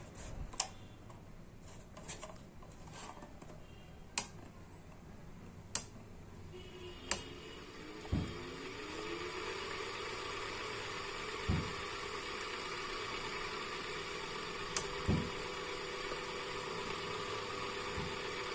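Ceiling fan being tested through a stepped rotary fan regulator: a few sharp clicks from the switchboard, then about seven seconds in the fan motor's hum rises in pitch and its air whoosh grows as the fan speeds up, holding steady after, with a few dull knocks.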